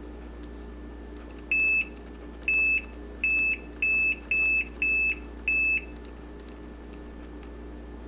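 Haier HLP21N portable washing machine's control panel beeping seven times, one short high beep per press of the cycle button as the selection steps through its settings.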